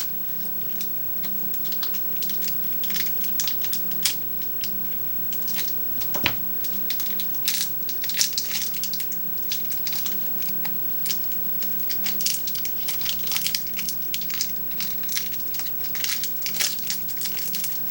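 Close-up chewing of crunchy Kit Kat wafer bars: a fast, irregular run of crisp crunches.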